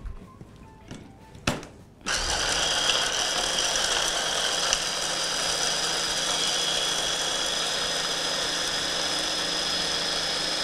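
Stick blender's motor unit on its mini-chopper bowl: a sharp click, then about two seconds in the motor starts and runs steadily with a high whine, chopping nuts down toward a flour-like meal.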